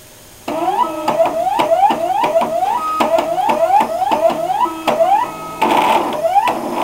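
Stepper motors of a homemade plotter driving the pen carriage in short, quick moves, each one a whine rising in pitch, about three a second, with clicks between them. Near the end the motors change to a denser, steadier whirring buzz.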